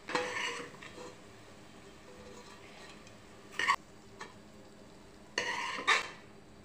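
Steel ladle scraping and clinking against the metal pressure cooker pot as fried pieces are scooped out onto a steel plate. There is a scrape at the start, a sharp clank in the middle, and a second scrape that ends in a clank near the end.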